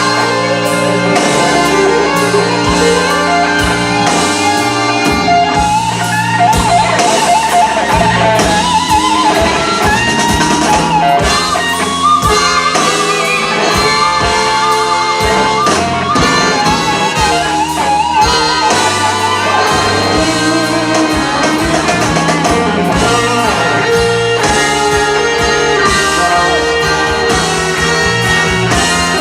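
Live blues band playing an instrumental passage, with a guitar lead of bent, wavering notes over bass and drums.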